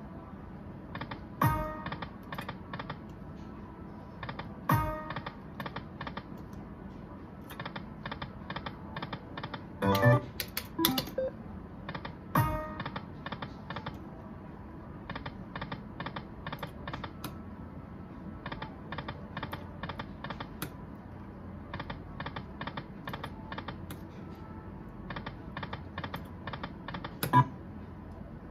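Aristocrat Dragon Link Golden Century poker machine playing its reel sounds over repeated spins: runs of quick clicking ticks, about five or six a second, as the reels spin and stop. A few louder knocks come between the runs.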